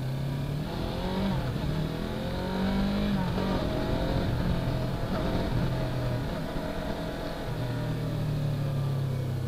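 Yamaha R3's parallel-twin engine pulling away from a stop, its pitch rising over the first few seconds, dropping at an upshift and rising again, then easing to a lower, steady note as the bike slows.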